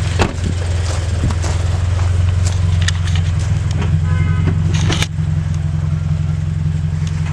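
Scion FR-S's 2.0-litre flat-four boxer engine idling steadily through a newly installed Invidia N1 catback exhaust, a deep note, not yet fully warmed up. A few short clicks and knocks sound over it.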